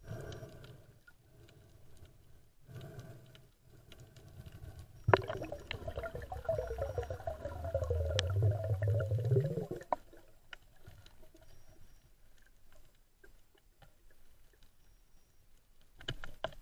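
Muffled underwater water noise around a camera held by a diver. It swells suddenly about five seconds in, a churning rush that lasts about five seconds, then drops back to a faint wash with scattered small ticks.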